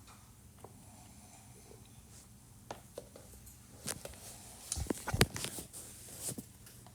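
Handling noise on a robot vacuum: a few short clicks and knocks, the loudest about five seconds in, over quiet room tone, as it is switched on.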